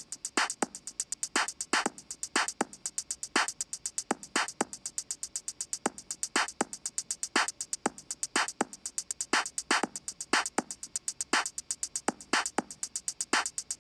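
Background music: a steady drum beat with fast, even ticks over regular strokes a few times a second.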